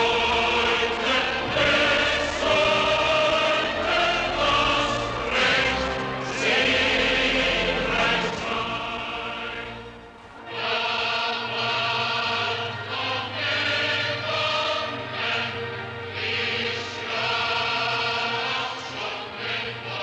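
Film score with a choir singing sustained chords over the music. It dips briefly about halfway, then comes back a little softer.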